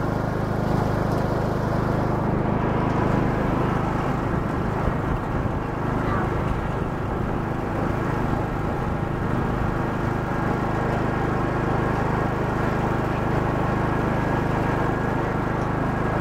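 Riding lawn mower's engine running steadily at an even speed while driving, heard up close from the seat.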